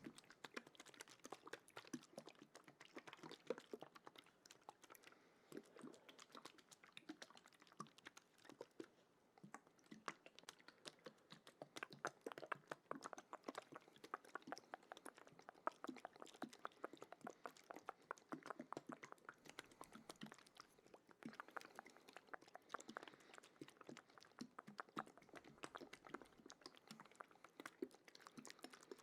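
Faint, wet ASMR mouth sounds close to the microphone: a dense, steady run of small clicks and smacks.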